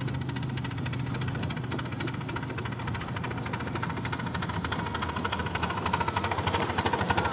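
Miniature railway train running along the track: a rapid, even clatter of many knocks a second, growing a little louder near the end.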